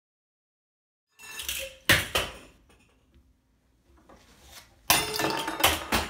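Stainless steel bowl clanging and rattling in two bouts of about a second each. The first starts just over a second in and the second comes near the end, each opening with a sharp clatter and ringing on.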